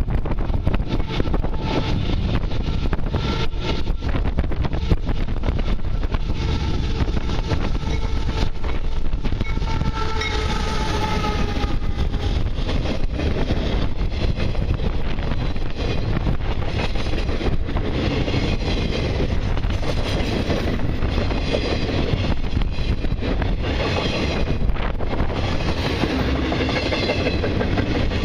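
Long intermodal freight train rolling past with a steady loud rumble and wheels clattering over rail joints. A faint drawn-out tone sounds through the first twelve seconds or so.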